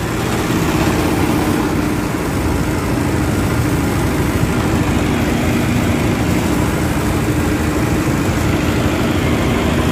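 Chang Hong R180 single-cylinder diesel engine running steadily under load, driving a portable fire-fighting pump, with a rapid low chugging.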